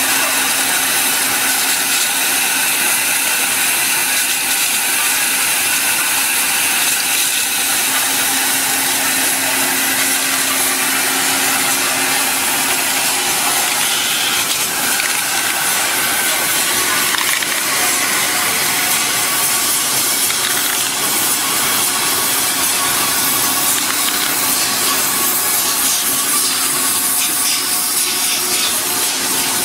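Drip-irrigation pipe extrusion line running: a steady, even hiss of machinery with a faint low hum underneath.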